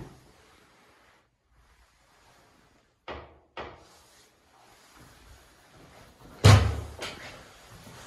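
An interior panel door banging loudly once about six and a half seconds in, with a heavy thud that dies away over about a second. Two lighter, short knocks come about three seconds in.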